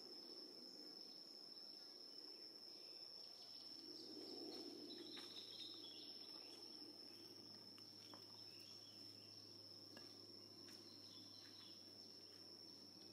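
Faint outdoor ambience: insects keep up one steady, high-pitched drone throughout. A soft low murmur swells briefly about four seconds in.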